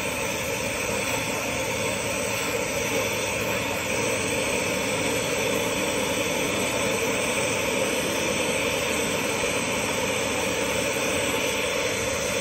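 Oxygen-propane glassworking bench torch burning with a steady, even rush of gas, its flame in use for shaping glass.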